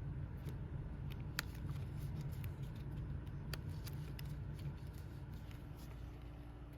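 Faint scattered clicks and rustles of a trading card being worked into a plastic binder-page pocket, its edge catching on the way in, over a steady low hum.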